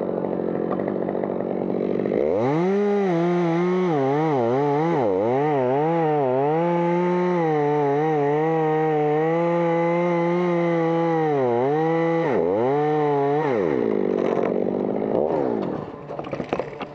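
Chainsaw cutting through a blue gum trunk: it revs up to full speed about two seconds in, its pitch wavering as the chain bites, holds steady through the cut, then drops back to lower revs about three seconds before the end, with a few quick blips of the throttle at the very end.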